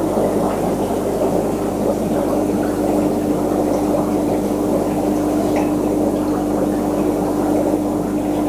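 Aquarium pump or filter running: a steady burble of moving water under a constant low hum.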